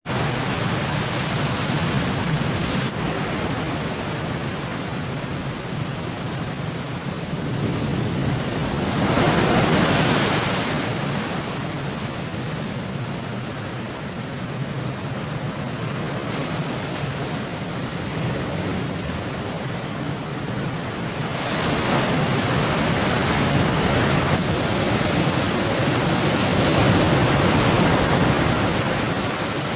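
Rough sea and strong wind: a loud, steady rush of waves and wind noise that swells about nine seconds in and again from about twenty seconds on.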